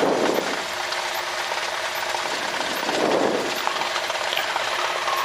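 1978 Cessna 172 Skyhawk's four-cylinder Lycoming engine running at low taxi power, heard from inside the cabin as a steady hum and hiss. Two short swells in the sound come near the start and about three seconds in.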